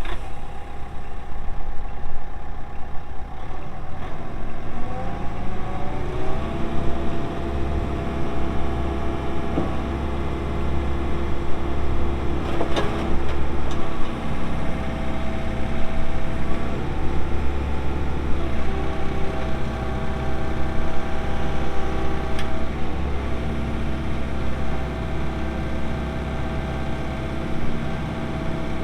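A 2011 Case CX80 excavator's pre-emissions Isuzu diesel engine running steadily. Its pitch rises about five seconds in and its tone shifts a few times after that. There are two short clicks partway through.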